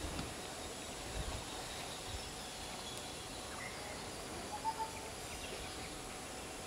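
Wetland ambience: a steady faint hiss, with a few brief faint bird calls in the middle and a couple of low thumps near the start.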